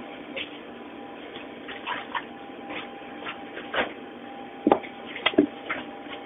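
Irregular knocks and clicks of food and utensils being handled at a kitchen work counter, about eight or nine of them, the loudest a little before 5 seconds in, over a steady electrical hum.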